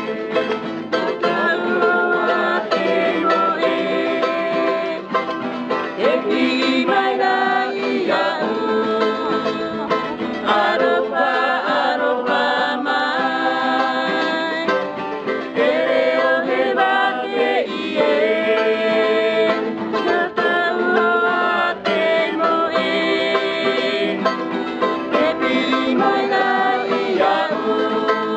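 Acoustic guitar and a small, bright-toned string instrument strummed together, accompanying a man singing.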